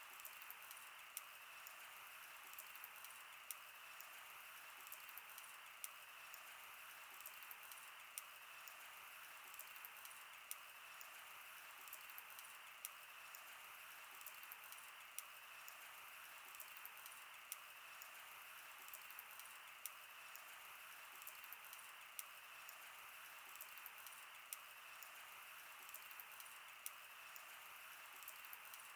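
Campfire crackling faintly: a steady hiss with sharp, irregular pops, a louder one every second or two.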